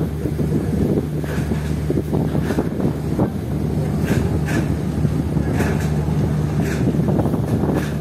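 Strong wind buffeting the microphone over the steady low hum of a ship's engine running at the dock.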